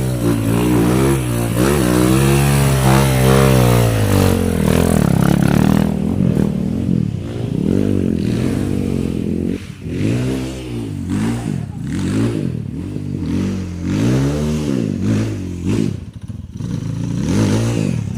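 Trail motorcycle engine revving hard and steadily, then from about six seconds in revving up and down again and again in short bursts of throttle.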